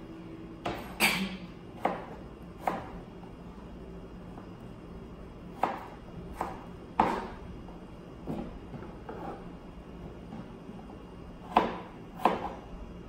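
Kitchen knife chopping potato on a plastic cutting board: about a dozen sharp knocks at an uneven pace, some close together in pairs, with long pauses between the groups.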